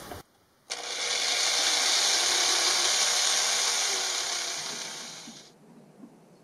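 Cordless drill boring a hole into the wooden side panel of a cabinet: a steady whirring hiss that starts about a second in and winds down near the end.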